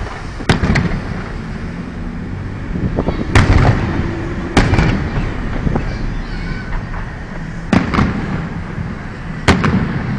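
Fireworks exploding in a string of sharp bangs, several coming in quick pairs. The loudest come about three and a half and four and a half seconds in.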